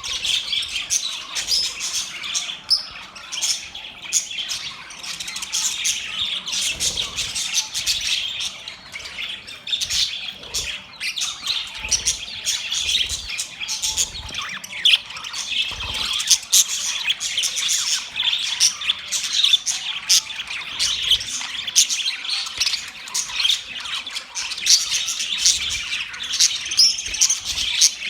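A flock of budgerigars chirping and chattering, a dense, unbroken mix of overlapping warbles, chirps and sharp squawks.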